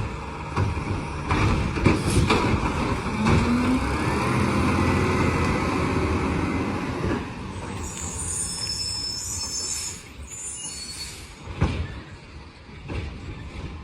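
Garbage truck working: engine and machinery running with repeated metal clanks and knocks. A high squeal comes in about eight seconds in and lasts a few seconds, after which the sound drops off with a couple more knocks.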